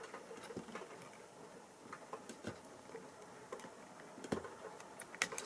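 Faint, irregular small clicks and taps from a circuit board and soldering iron being handled while components are desoldered, with a couple of sharper clicks near the end.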